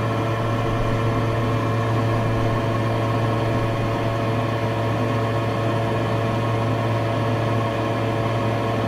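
Fume hood exhaust fan running with a steady hum.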